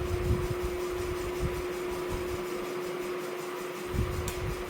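A steady electrical or fan hum, with a few soft low thumps and a light click near the end.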